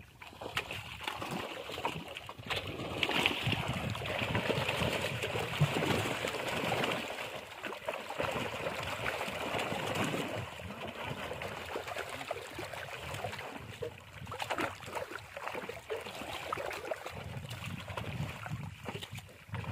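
Water splashing and sloshing in the shallows as fish caught in a net flap about and the net is dragged out of the water, a run of irregular small splashes.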